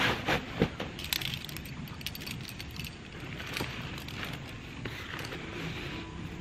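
Nylon backpack rustling and climbing hardware clinking as a rope bag, slings and sport-climbing quickdraws are stuffed into the pack, with a few sharp knocks in the first second or so.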